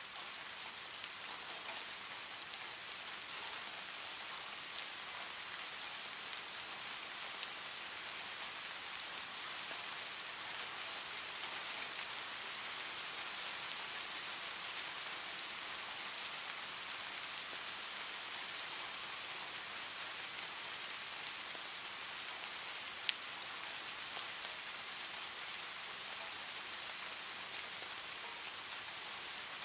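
Heavy rain on a tin roof: a steady, even hiss of dense drops, with one sharp tap about three-quarters of the way through.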